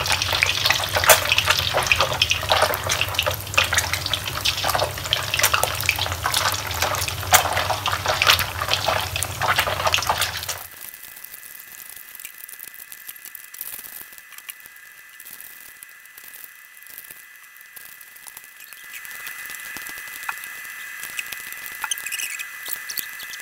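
Pieces of sun-dried snakeskin gourami fillet deep-frying in hot oil in a metal pot, a dense loud crackling and sizzling. About ten seconds in it drops suddenly to a quieter sizzle with a faint steady high tone.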